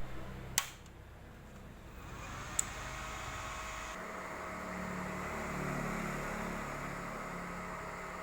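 Inverter welding machine running, its cooling fan whirring with a faint steady whine. A click comes just after the start, and the whir builds up about two seconds in.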